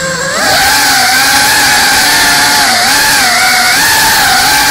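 FPV quadcopter's brushless motors and propellers whining, the pitch wavering up and down with the throttle over a steady hiss.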